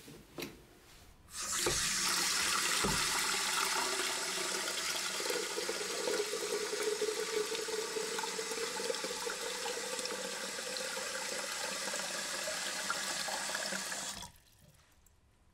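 A few knocks as a stainless-steel electric kettle is handled, then a kitchen tap running water into the kettle for about twelve seconds before being shut off abruptly.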